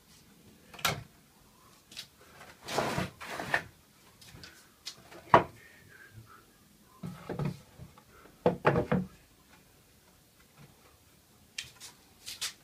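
Pallet-wood boards handled on a wooden bench frame: a string of separate wooden knocks and short scraping slides of wood on wood, the sharpest knock about five seconds in.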